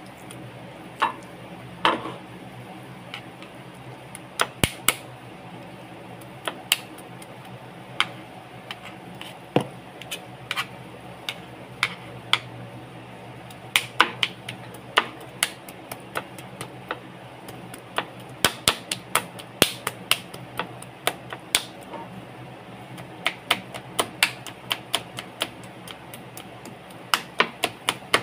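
Large kitchen knife mincing raw chicken on a plastic cutting board: sharp, irregular knocks of the blade striking the board, sometimes several in quick succession, coming fastest near the end.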